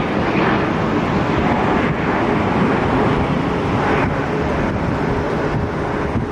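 Steady jet engine noise from an aircraft departing the airport, mixed with wind on the microphone.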